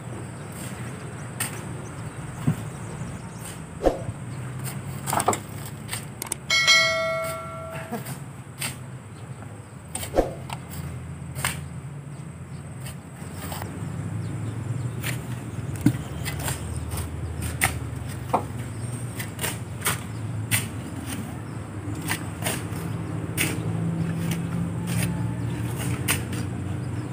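Shovels scraping and knocking as river sand is dug and thrown into a steel pickup truck bed, with one ringing metallic clang about seven seconds in. Under it runs a steady low engine hum that swells in the last part.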